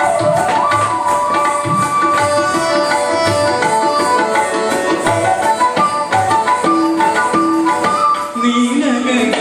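Indian classical dance music in Carnatic style: a hand drum keeps a steady beat, about one deep stroke a second, under a melody instrument playing a line of held notes that step up and down.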